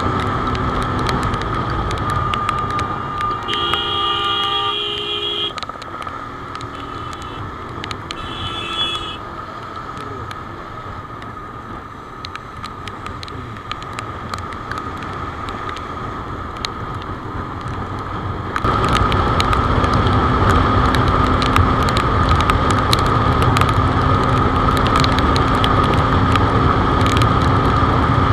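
Wind and wet-road noise with the Benelli TNT25's single-cylinder engine running at highway speed. A vehicle horn sounds twice, a longer blast about four seconds in and a shorter one about eight seconds in. About two-thirds of the way through, the noise jumps abruptly louder and stays steady.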